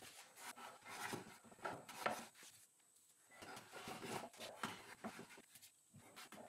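Small hand plane scraping faint, short shaving strokes across the end of a wooden beam, cleaning up a rough bandsaw cut, with brief pauses between passes.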